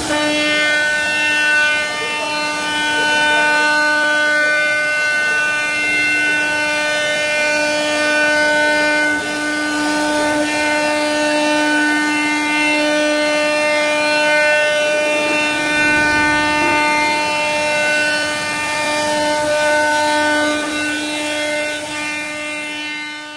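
CNC wood router's spindle running with a steady high-pitched whine at constant speed, fading out near the end.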